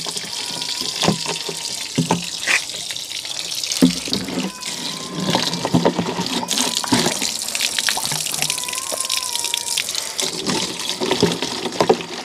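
Water running and splashing steadily as it is collected into containers, with a few sharp knocks from the containers being handled.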